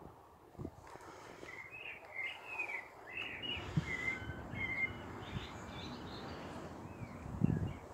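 A small songbird singing in a run of short, quick chirping notes for a few seconds, over a faint outdoor hiss, with a brief low rumble near the end.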